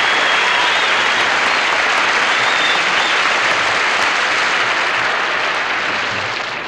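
Audience applauding, a steady round of clapping that eases slightly near the end.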